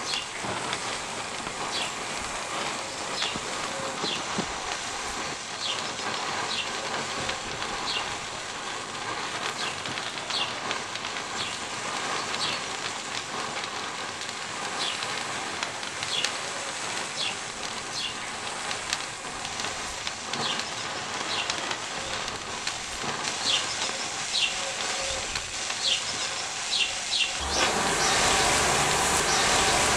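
Thousands of matches burning inside a sphere built of matches: a steady fizzing hiss with scattered short high-pitched ticks, while smoke pours out. About 27 seconds in, the fire breaks through the shell and the sound swells into a louder, fuller rush of flame.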